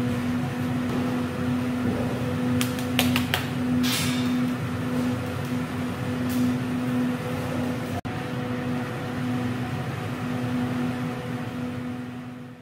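Steady electric hum of a fan, with one constant mid-pitched tone, and a few sharp clicks about three and four seconds in.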